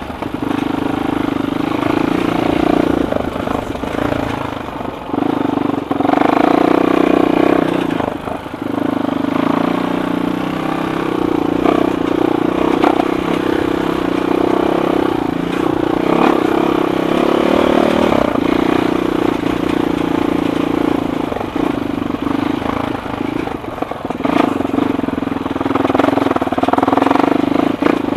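Suzuki LTR 450 quad's single-cylinder four-stroke engine running at low to moderate throttle on a slow trail ride, dropping off briefly a few times and picking up again.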